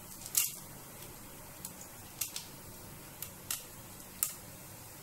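Mustard seeds, cumin and chana dal sputtering in hot oil in a frying pan for a tadka: sparse sharp pops, about six in five seconds, over a faint steady hum.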